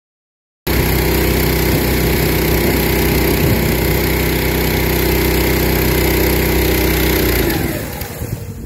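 Pressure washer engine running steadily with the hiss of a rotary flat surface cleaner's water jets on a rubber surface. It cuts in suddenly about a second in, and the engine note drops away near the end.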